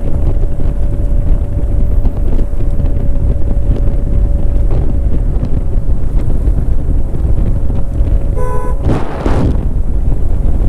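Ola electric scooter on the move: a steady whine from its motor over heavy wind buffeting and road rumble, with a faint knock about halfway through of the kind the rider traces to the front suspension rattling over bumps. A vehicle horn toots briefly near the end.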